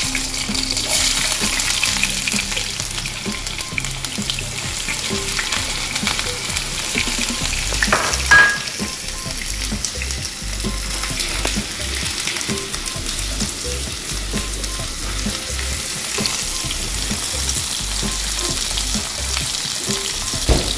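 Chopped red onion sizzling in hot oil in a pan, starting suddenly as the onion goes in, while a wooden spoon stirs it. A single sharp knock with a short ring about eight seconds in.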